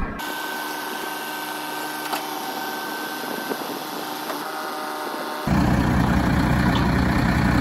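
Mercedes flatbed tow truck's diesel engine running steadily to power the hydraulics of its tilted bed, with a hum of steady tones. About five and a half seconds in it becomes much louder and fuller, with a strong low rumble.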